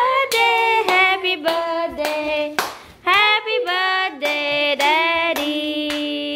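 Voices singing together, some notes held long, with hands clapping along.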